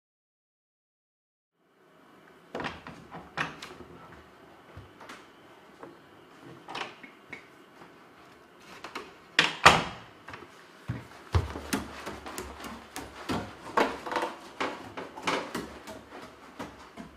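Near silence for about two seconds, then a run of irregular clicks and knocks as a wooden door is handled and someone moves about a small wooden room, with a pair of sharper knocks about halfway through.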